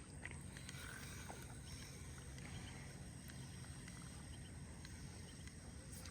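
Faint outdoor ambience by a pond: a steady low rumble, like wind on the microphone, with scattered faint ticks and small chirps.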